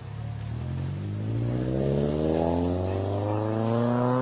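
Road vehicle's engine accelerating, its pitch climbing steadily over about three seconds as the revs build.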